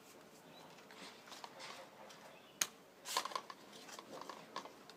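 Clicks and rattles of a bike workstand being handled as its clamp head is fitted onto the top of the post: one sharp click about halfway through, then a quick run of rattling and a few lighter clicks.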